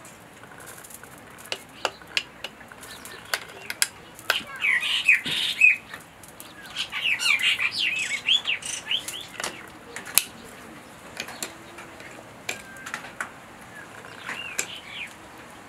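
Birds chirping in quick runs of short calls, one about four to six seconds in, a longer one around seven to nine seconds, and a brief one near the end. Scattered sharp clicks and taps sound between them.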